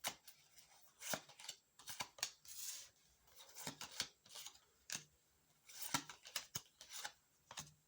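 Tarot cards being shuffled and drawn by hand: a scattered run of light snaps, flicks and rustles of card stock, with short gaps between them.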